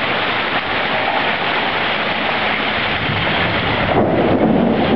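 A heavy downpour of rain mixed with hail, falling on a lawn and a driveway: a dense, steady hiss. About four seconds in, the hiss thins at the top and a lower, rougher rumble comes in.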